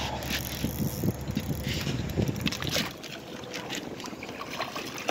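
Scattered splashes and knocks at the side of a boat as a hooked smallmouth bass is brought in to be landed. Wind rumbles on the microphone for the first three seconds.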